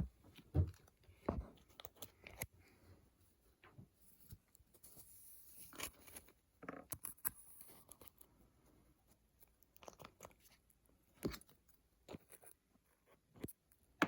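Irregular light taps, clicks and rustling, the sound of hands handling objects, with the loudest knocks about half a second and about one and a half seconds in and again near eleven seconds.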